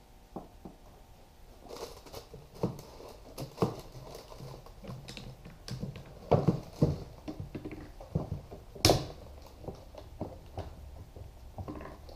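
Irregular knocks, taps and scrapes of wooden boards being handled and positioned on a workbench, with one sharper clack about nine seconds in.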